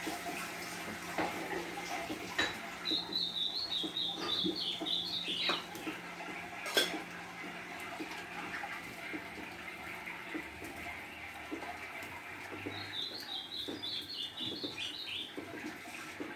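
A golinha (seedeater) singing two quick warbled song phrases, about ten seconds apart, over a steady hiss of rain, with scattered light clicks and one sharp click in between.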